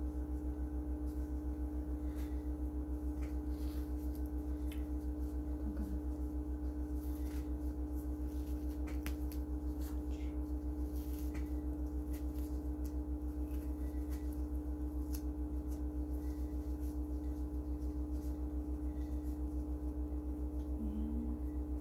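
A steady electrical machine hum with a fast, even pulse, under light rustling and scattered small clicks of gloved hands handling gauze and dressing wrappings.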